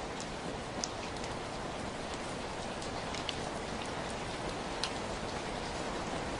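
Steady rain falling, an even hiss with a few sharper drops ticking here and there.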